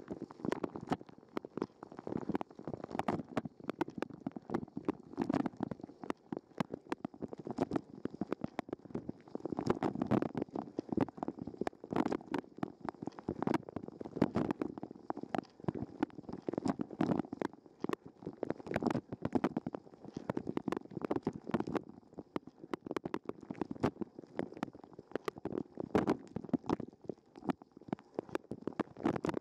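Dishwasher wash cycle heard from inside, through a waterproof sports camera's housing: water from the spray arms splashing against the case as a dense, irregular patter of droplet hits over a muffled, churning gurgle.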